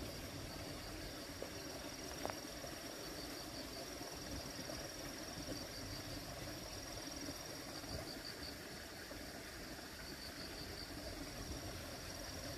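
Insects singing outdoors: a steady high-pitched trill with pulsing groups of chirps every couple of seconds, over a low background hum, with one small click about two seconds in.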